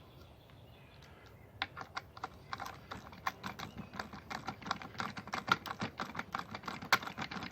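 Ratchet wrench clicking quickly as it runs a self-locking stainless steel hex nut onto an outboard transom clamp bracket bolt. It starts about a second and a half in.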